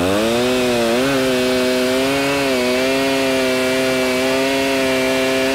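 Giant V8-powered two-man chainsaw running under load as it cuts through the last few inches of a redwood log. Its engine pitch dips at the start, climbs back about a second in, then holds steady.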